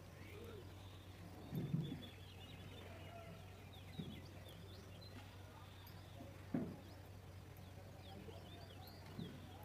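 Birds chirping faintly over a steady low hum, with a few short, low, soft sounds; the loudest comes about two seconds in.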